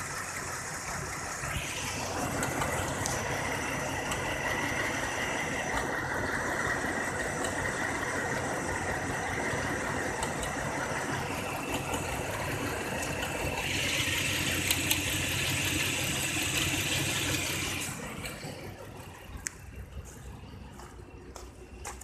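2004 Cadillac CTS 3.6-litre V6 idling with the air conditioning on, under a persistent misfire, mostly on cylinder one, that leaves the engine shaking. The sound drops in level about three quarters of the way through.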